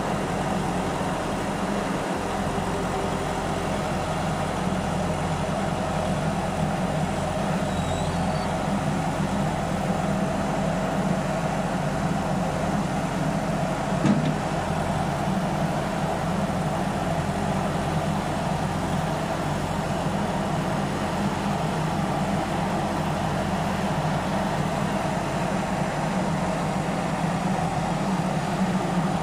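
Kaiser S2-4 walking excavator's diesel engine running steadily, with one short knock about halfway through.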